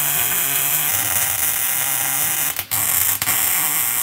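Wire-feed welder arc tack-welding steel roll-cage tubing, a steady loud noise that breaks off briefly twice, about two and a half and three seconds in.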